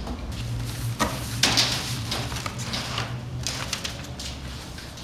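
Parts and packaging being handled during unpacking: rustling plastic wrap and paper with a few sharp knocks, the loudest about a second and a half in.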